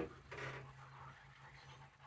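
Faint low hum of the small motors of a homemade RC bulldozer, with a short scrape about half a second in.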